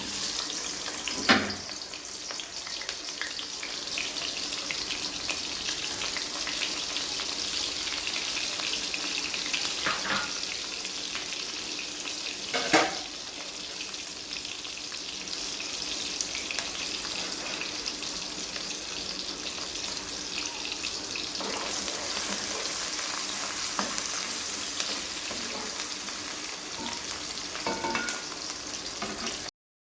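Food sizzling and crackling as it fries in hot oil in a pan, with two sharp knocks of a utensil against the pan; the sizzle grows louder about two-thirds of the way through.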